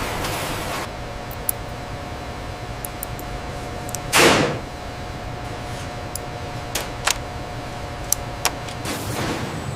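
Steady machine hum with a faint held tone, broken by a few sharp mechanical clicks and one loud, short whoosh about four seconds in.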